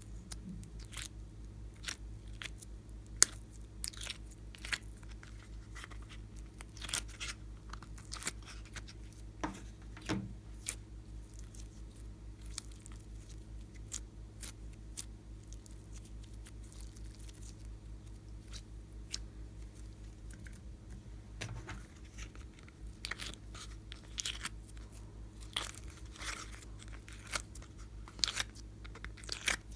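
Clear slime being worked by hand, giving irregular sharp clicks and crackles, the loudest about three seconds in, over a steady low hum.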